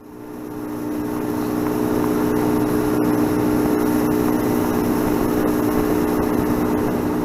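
Motorboat engine running at a steady speed, with rushing noise from wind and water. It rises in over the first second.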